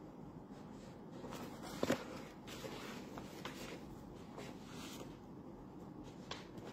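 Rustling and handling noises with scattered soft clicks, and one sharper knock about two seconds in.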